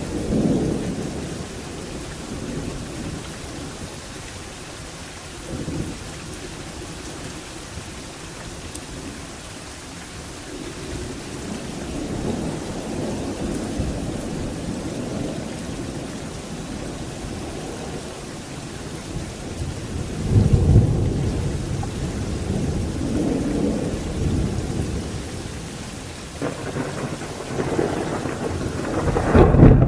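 Thunderstorm: heavy rain falling steadily while thunder rumbles repeatedly. A loud rumble of thunder starts suddenly about two-thirds of the way through, and another swells up near the end.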